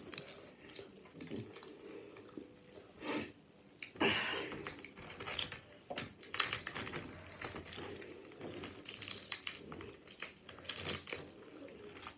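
Cooked crab leg shells cracking and snapping as they are broken apart by hand, a run of irregular sharp clicks and crackles.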